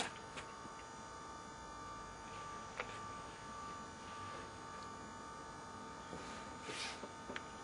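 Steady low electrical hum, with a few faint light clicks and one brief scrape about seven seconds in.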